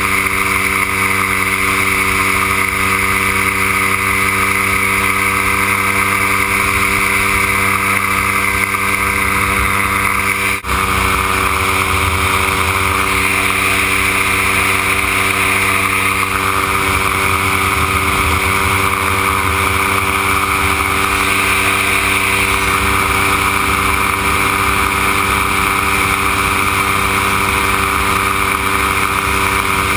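Dominator gyroplane's pusher engine and propeller running at a steady cruise note, heard from on board with wind rush over the microphone. The sound dips for a moment about ten seconds in.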